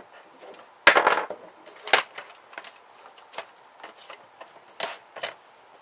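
Clicks and clatter of small plastic and metal parts being handled while an electronic pH meter is taken apart by hand. The loudest is a knock with a brief ring about a second in, followed by scattered single clicks.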